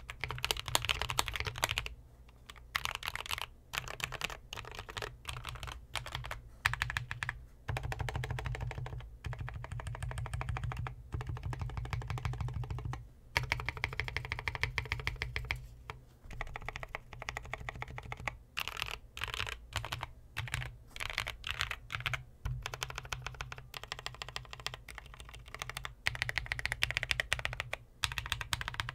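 Fast typing on a custom 60% mechanical keyboard: lubed NK Cream linear switches under PBT keycaps, on a polycarbonate plate in a foam-filled, tape-modded walnut wood case. The keystrokes come in quick runs broken by short pauses.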